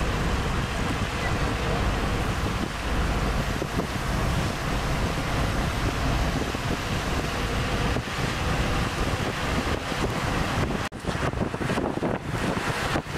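Wind rushing and buffeting the microphone at the open window of a moving vehicle, over the vehicle's road noise. The low rumble eases about two-thirds of the way in, and the wind turns choppy near the end.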